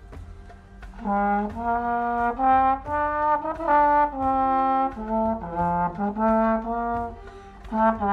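Solo trombone playing a slow melody of held notes. It starts about a second in and pauses briefly near the end before picking up again.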